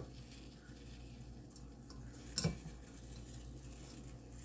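A single short clink of kitchenware about halfway through, over a faint steady low hum.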